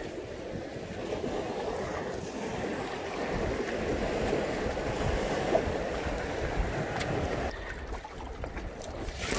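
Sea waves washing over basalt rocks, with wind rumbling on the microphone. The wash eases about three-quarters of the way through, and a brief sharp noise comes right at the end.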